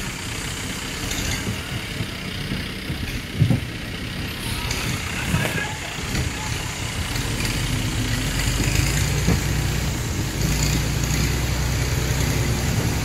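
4x4 jeep engine running as it crawls through a flooded, rutted track, with a couple of sharp knocks from the vehicle jolting over the ruts. About eight seconds in the engine hum gets louder and steadier.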